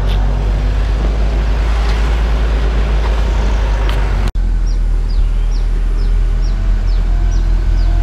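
Steady low rumble of a heavy diesel engine running. It breaks off for an instant about halfway, and after that small birds chirp over it again and again, about twice a second.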